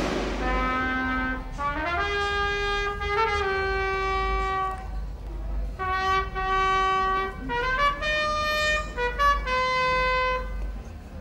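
Solo trumpet playing a slow melody of long held notes, some sliding up into the next, with brief breaks between phrases; the playing stops shortly before the end. A low steady rumble sits underneath.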